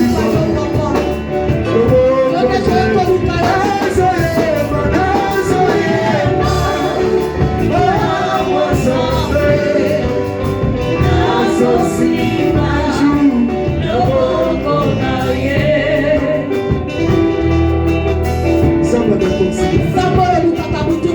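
Church worship music: a gospel song sung by voices over a band with a steady beat.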